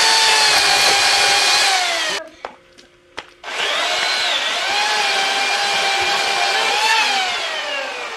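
A power saw cutting wood. It runs in two bursts with a whine whose pitch sags and recovers under load, stops for about a second between them, and winds down near the end.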